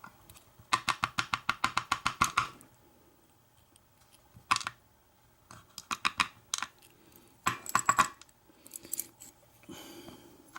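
Small metal lock parts clicking and rattling as the pin tumblers and springs are tapped and shaken out of a disassembled American 1100 padlock. A fast run of clicks comes first, then scattered single clicks and short rattles.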